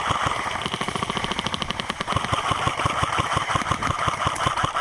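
Airsoft guns firing rapid full-auto strings, a fast rattle of shots about ten or more a second.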